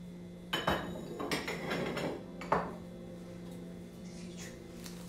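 Glass and china dishes clattering and clinking as they are handled and set down, a run of clinks and knocks in the first half that ends with one sharper knock, over a steady low hum.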